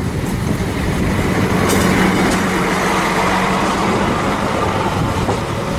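Class 810 railbus passing close by, its underfloor six-cylinder diesel engine running with a steady hum under loud running noise from the wheels on the track. A few short, sharp clicks come about two seconds in.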